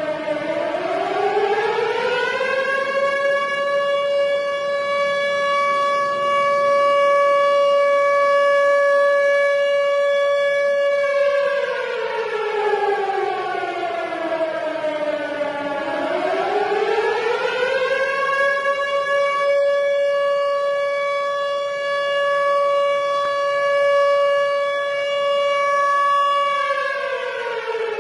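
Tornado warning siren wailing. Its pitch rises over about two seconds and holds steady for about eight seconds, then falls over about four seconds. It rises and holds again, and starts to fall near the end.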